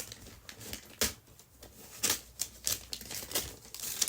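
Paper being handled and unwrapped, crinkling in short, irregular crackles.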